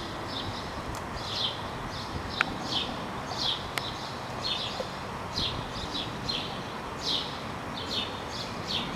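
Small birds chirping over and over, short high falling chirps about two a second, over a steady background hiss.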